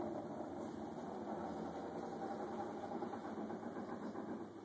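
Stratasys uPrint 3D printer running while it prints, a steady mechanical whir.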